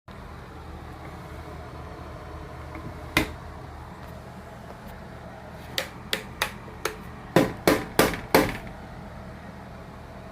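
Sharp knocks of hard objects: one about three seconds in, then a quick irregular run of about nine knocks and clacks, loudest near the end of the run, over a steady low hum.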